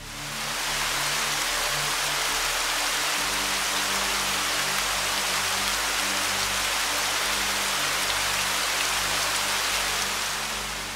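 Steady rush of a waterfall, fading in over the first second and fading out near the end, over soft background music.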